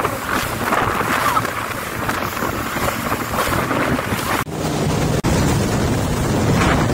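Jet ski running at speed: wind buffets the microphone and water rushes and sprays under the hull over a low engine drone. The sound cuts out sharply twice, about four and a half and five seconds in, after which the steady engine drone stands out more.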